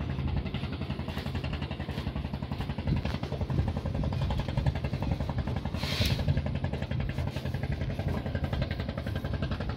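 Fishing boat's diesel engine running steadily with a fast, even chugging. A short higher noise stands out about six seconds in.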